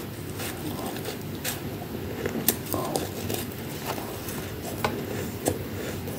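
Close-up mouth sounds of a person chewing a mouthful of freezer frost, crunching with irregular sharp crackles.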